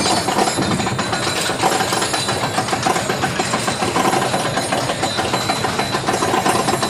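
Mine train roller coaster climbing its chain lift hill: the lift chain rattling and the anti-rollback dogs clacking in a rapid, steady run, with a faint steady whine from the lift drive.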